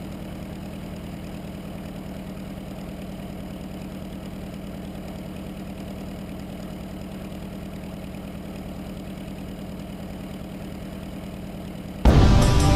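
Engine of a Fokker Dr.1 triplane replica idling steadily while the plane taxis, its propeller turning slowly. About a second before the end, much louder music cuts in suddenly.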